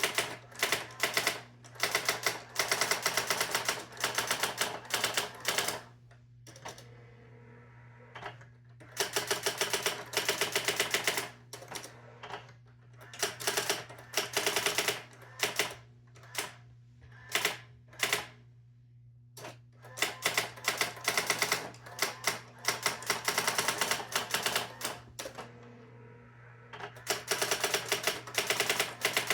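Brother GX-6750 electronic daisy-wheel typewriter typing: quick runs of sharp strikes in bursts of a second or more, with short pauses between them, over a steady low hum from the machine.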